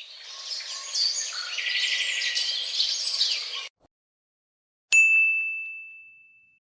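Birds chirping and trilling for about three and a half seconds. After a short silence comes a single bright ding, a struck bell-like tone that rings on and fades away over nearly two seconds.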